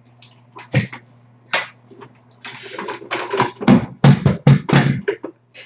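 A cat eating wet food from a metal bowl: wet chewing and smacking clicks, a few spaced ones at first, then a dense run for a couple of seconds, over a steady low hum.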